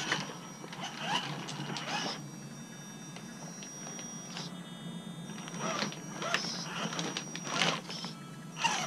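Gmade GOM RC rock crawler's electric motor and gears whining steadily as it crawls over rocks, with the tyres and chassis scraping and knocking against stone now and then. The whine stops briefly about halfway through.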